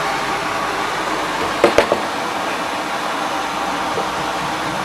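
Steady rushing background noise, like a running fan or air blower, with a short cluster of sharp knocking sounds a little under two seconds in.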